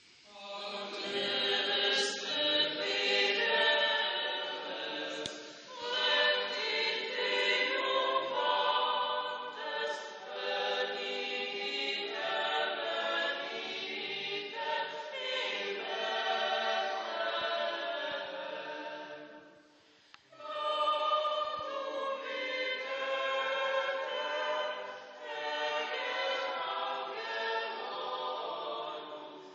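Choir singing, with a short break about two-thirds of the way through before the singing starts again.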